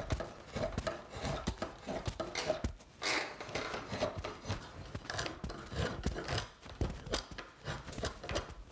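A rasp worked back and forth in repeated scraping strokes over a wooden axe-handle blank, rough-shaping it down to marked guide lines.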